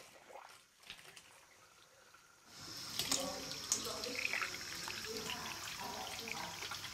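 Water from a heating system's high pressure relief valve dribbling through a Hotun tundish into the waste pipe. Quiet at first; from about two and a half seconds in it becomes a steady trickle and splash with small bubbling sounds.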